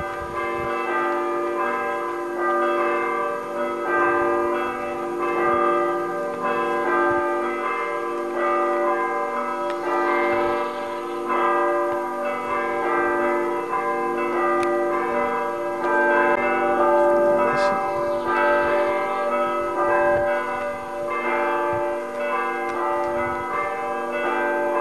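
Bells ringing continuously: a dense run of struck notes, each ringing on and overlapping the next.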